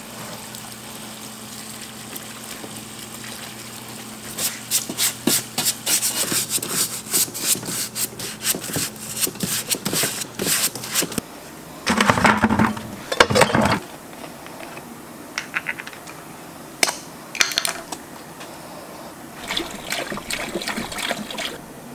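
Parts-washer pump humming steadily with solvent streaming from its nozzle. Then a stiff brush scrubs the rusty steel bowl of a hibachi grill in foamy degreaser with quick, irregular strokes. The hum stops about halfway, followed by a couple of seconds of loud splashing liquid, then scattered knocks and another short run of scraping near the end.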